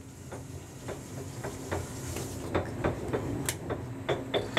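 Kitchen work sounds: scattered light clinks and knocks of cookware and utensils over a steady low hum, with a brief hiss about two seconds in.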